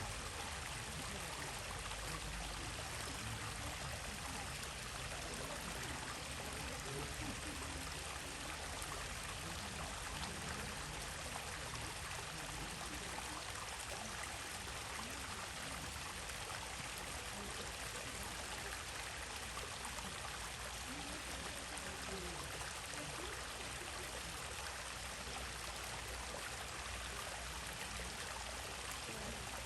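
A stream running steadily over rocks, an even rushing and trickling of water.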